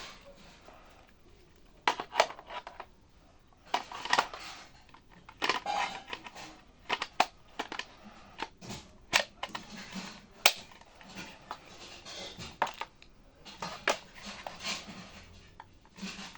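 Impact wrench run in short trigger bursts, stopping and starting every second or two, with sharp clicks in between.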